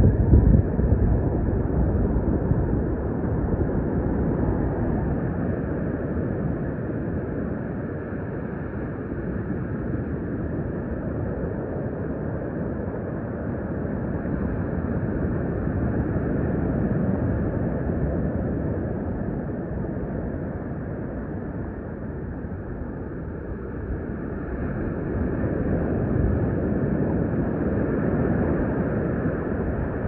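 Wind buffeting the phone's microphone: a steady low rumble that is loudest in a gust at the start and swells and eases every several seconds.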